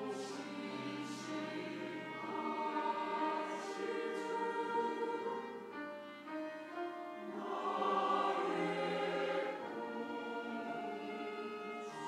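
Mixed church choir singing a hymn, accompanied by violins.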